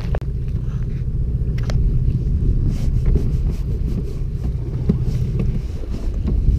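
Steady low rumble of wind and boat noise buffeting the microphone on a fishing boat at sea, with a few faint clicks.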